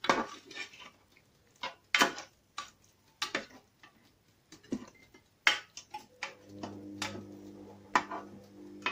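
A cooking utensil clinking and scraping against a pan in irregular, sharp knocks, as when stirring a sauce. A steady low hum comes in about six seconds in.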